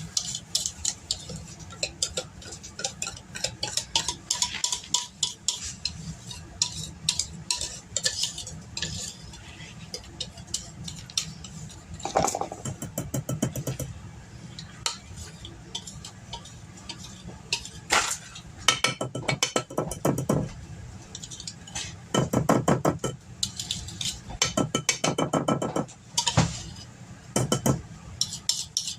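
A utensil scraping and clicking against a mixing bowl as cake batter is poured and scraped out into a baking pan, with louder stretches of scraping partway through.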